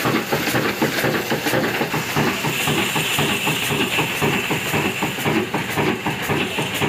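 Old Ruston diesel engine running steadily with an even, rapid beat and a hiss over it.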